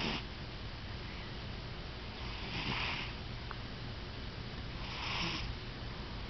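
A cat snoring: two breathy snores about two and a half seconds apart, about three and five seconds in.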